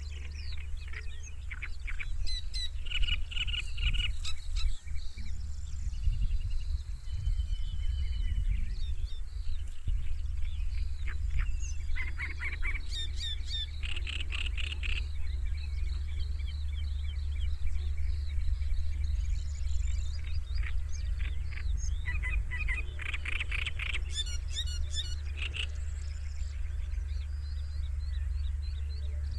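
Small birds singing outdoors, with bursts of rapid trills and chirps every few seconds, over a steady low rumble.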